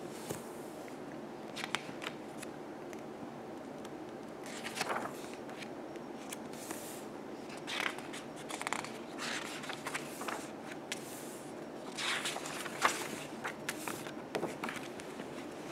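Paper pages of a large softcover book being turned and smoothed by hand: a few soft rustles and crisp flicks spread through, the sharpest in the last third, over a steady faint hiss.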